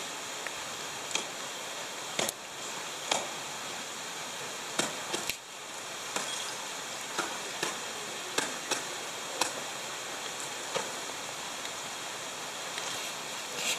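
Ice climbing tools and crampons striking a frozen waterfall: about a dozen sharp, irregular knocks as the climber swings the tool and kicks in, over a steady hiss.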